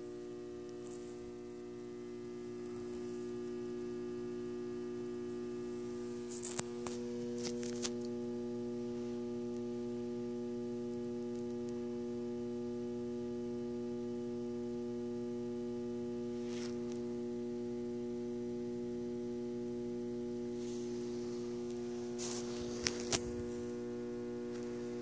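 Steady electrical hum made of several steady pitches that holds without change, with a few scattered sharp clicks.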